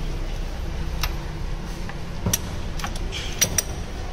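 Scattered sharp metallic clicks and taps, about five of them, from hand work on the engine as the spark plugs are being got at, over a steady low hum.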